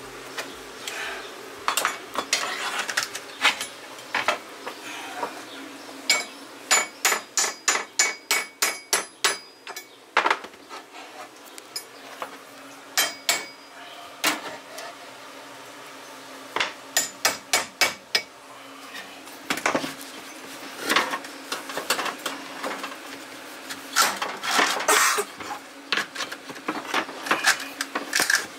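Hammer striking a metal flooring pull bar to knock luxury vinyl planks tight against each other. It comes as several runs of quick, sharp knocks, the longest about ten strikes in a row a few seconds in.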